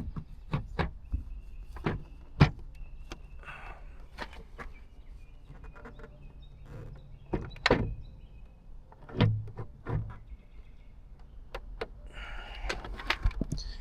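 Scattered clicks and knocks of plastic trim parts and fasteners being handled and fitted on a car's body, with a sharp knock about two and a half seconds in and heavier thuds near eight and nine seconds.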